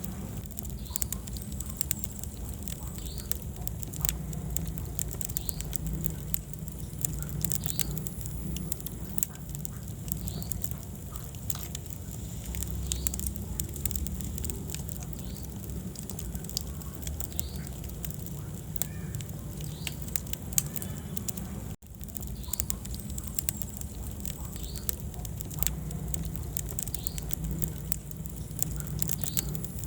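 Wood fire burning in a fireplace: a steady low rumble of flames with many small crackles and pops throughout. There is a momentary gap in the sound about two-thirds of the way through.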